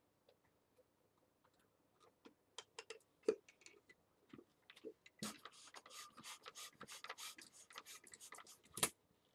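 Handling a latex twisting balloon. Scattered faint clicks come first, then from about halfway a few seconds of quick rubbing and squeaking strokes, ending in one sharp click.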